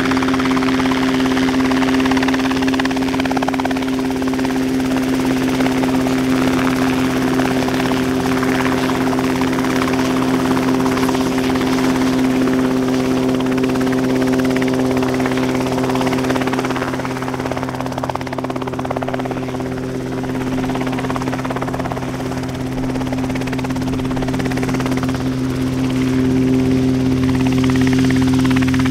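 A600 Talon light helicopter hovering low over the ground, engine and rotor running with a steady drone over a low pulsing rotor beat. The sound eases off a little about two thirds of the way through, then swells again near the end.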